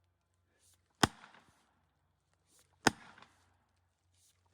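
An axe being swung to hammer a felling wedge into the cut of a tree: two sharp blows about two seconds apart, with a third right at the end, each ringing out briefly.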